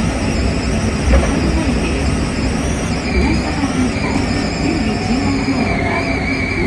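Hankyu 5100-series electric train heard from the driver's cab during a station stop: a steady mechanical hum with a low tone that wavers up and down.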